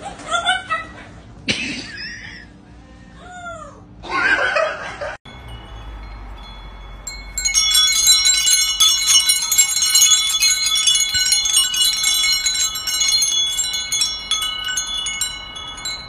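A set of hanging tube wind chimes being knocked about by a white cockatoo, ringing with many overlapping clear tones and clinks through most of the second half. Before that, a parrot's short calls and rising-and-falling whistles.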